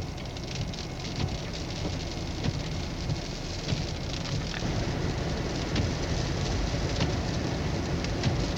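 Steady rushing noise of blizzard wind and blowing snow, with many small scattered ticks and crackles.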